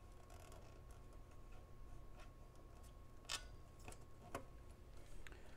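Near silence with a few faint, sharp handling clicks as transformer lead wires are desoldered and worked free from an amplifier board, over a faint steady hum.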